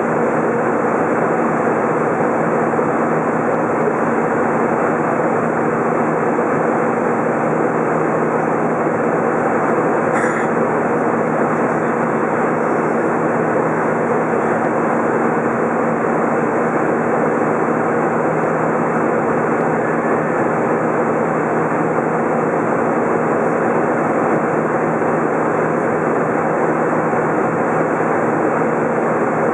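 Steady cabin noise inside an Airbus A320 in flight: the engines' drone and the rush of air, heard from a window seat over the wing, with a constant low hum under it.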